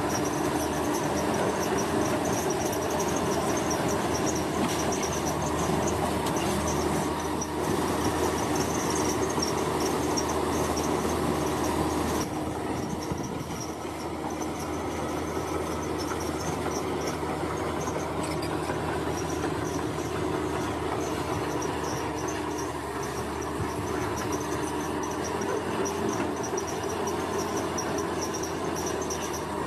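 Heavy earth-moving machine's engine running steadily under load while pushing soil, easing off a little about twelve seconds in. Insects chirp in a steady high pulsing trill throughout.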